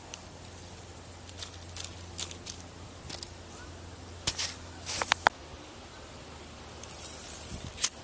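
Spinning rod and reel being handled through a cast: a scatter of sharp clicks, loudest about five seconds in, and a short hiss about seven seconds in.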